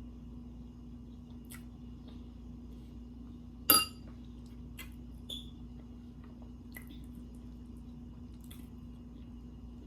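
Quiet eating sounds: small mouth clicks and faint handling noises, with one loud, sharp click about four seconds in, over a steady low electrical hum.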